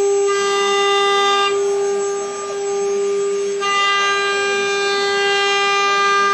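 CNC router spindle running with a steady high whine. The higher overtones thin out for about two seconds near the middle, then come back.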